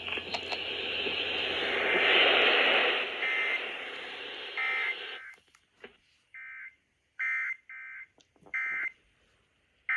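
A steady hiss of radio static, then, after about five seconds, a string of short, separate bursts of digital data tones with silent gaps between them: the Emergency Alert System's end-of-message code sent after the test.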